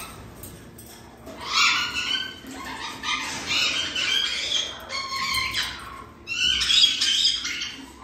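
Caged white-bellied caique parrot screeching harsh, raspy calls in two long bouts: one starting about a second and a half in, and a louder one near the end.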